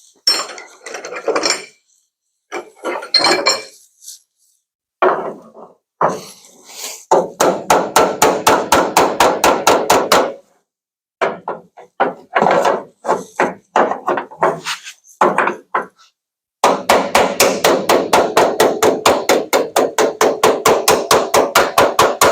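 Body hammer tapping the sheet metal of a pickup bed to smooth out a dent. After a few scattered knocks it settles into quick, even runs of taps, about six or seven a second: one run of about three seconds, then a longer one starting about halfway through.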